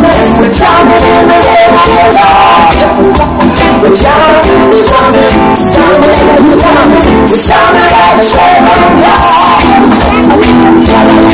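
Live reggae band playing loudly, with a man singing lead over guitar and drums.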